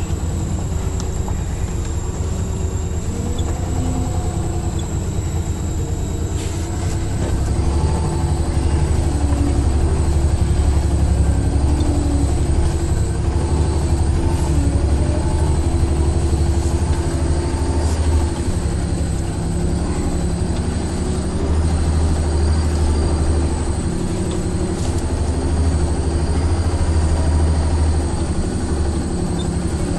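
A truck engine heard from inside the cab, running steadily as the truck drives slowly over a rough dirt track. It swells louder for several seconds at a time, from about eight seconds in and again near the end, with a few light knocks and rattles from the cab.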